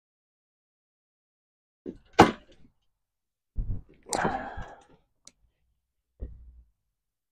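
Handling of tools and parts at a log splitter's engine mount: a sharp click about two seconds in, a rough noise lasting about a second near the middle, and a soft low knock near the end.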